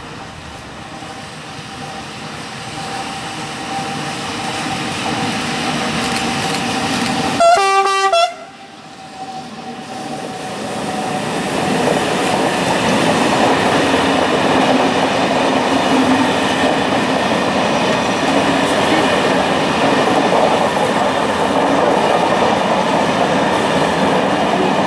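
Electric locomotive hauling passenger coaches approaching and passing at speed: its rolling noise grows steadily, the horn gives one short blast about seven and a half seconds in, and then the coaches pass close by with a loud, steady rumble of wheels on rail.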